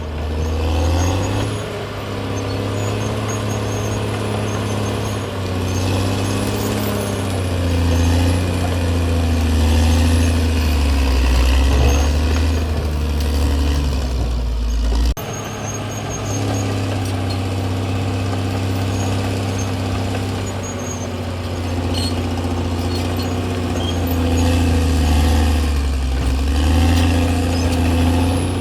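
Caterpillar D6R XL bulldozer's diesel engine working under load, its pitch rising and falling as the load changes. The sound breaks off abruptly about halfway through and carries straight on.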